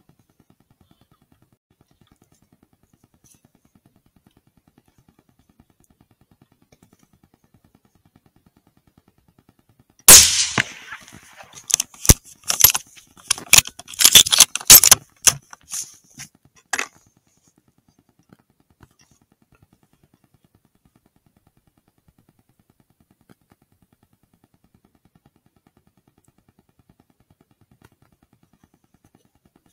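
A single very loud rifle shot about ten seconds in, recorded through the riflescope's own microphone. It is followed by about six seconds of irregular sharp clicks, cracks and clatter.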